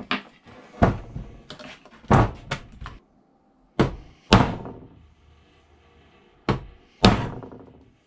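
Hammer blows on a screwdriver used as a drift, knocking a stubborn pivot pin out of an old Gasboy gas pump's handle arm held in a bench vise. The strikes come singly and in pairs, with short pauses between them.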